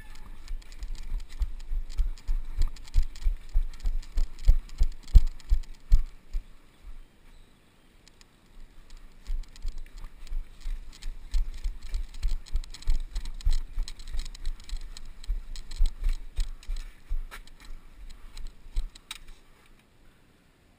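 Gear rattling and jangling over irregular low thumps, from an airsoft player moving with kit. It stops about seven seconds in, starts again about two seconds later, and dies away shortly before the end.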